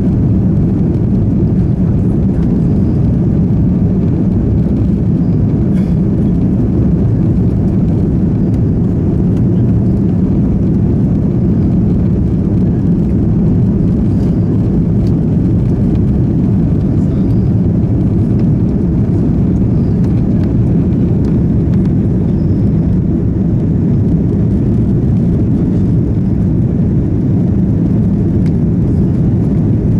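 Steady low drone of engine and airflow noise inside the cabin of an Airbus A330-300, even in level throughout.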